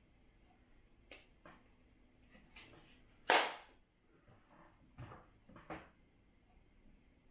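Webley Alecto .177 multi-pump air pistol being handled before a shot: several light clicks, one loud snap about three seconds in as the pump arm is closed, then two more clicks.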